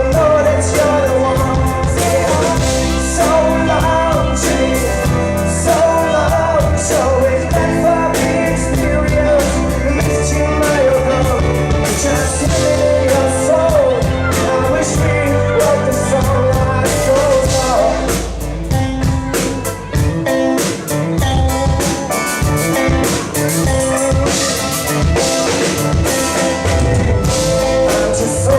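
Live band playing a song at a sound check: a singer's voice over drum kit, bass and guitar. About two-thirds of the way through, the deep bass drops out for a few seconds, then the drums come back in.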